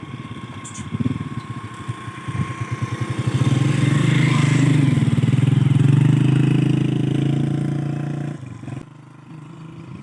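A motor vehicle's engine drawing near, passing close and fading away, loudest about halfway through.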